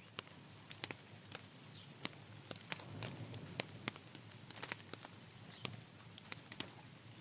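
Light rain: scattered drops ticking irregularly on a hard surface, several a second, over a faint steady hiss and low rumble.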